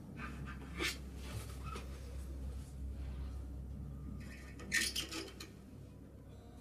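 Two short rustling scrapes, one about a second in and a louder cluster near five seconds, over a low steady hum.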